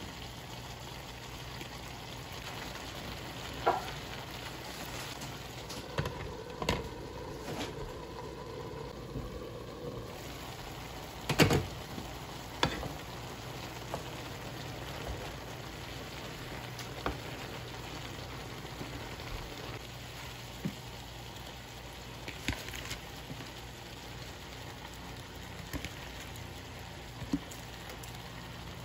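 Vegetables sizzling and simmering in a frying pan, a steady hiss, broken by scattered knocks and clatters of a wooden spoon against the pan and of bok choy leaves being dropped in and stirred; the loudest knock comes just before the halfway point.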